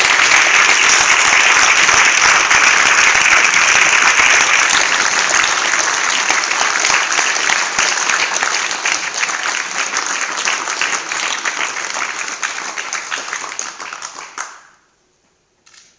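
An audience applauding, many people clapping together, loud and sustained, easing off a little in the second half and cutting off suddenly near the end.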